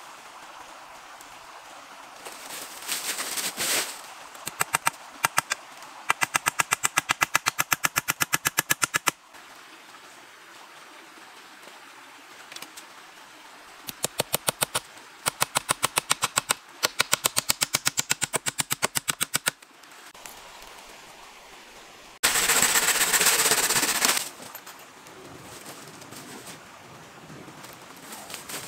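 Rapid sharp clicking, about twelve clicks a second, in several runs of two to three seconds each; later a loud burst of hiss lasting about two seconds.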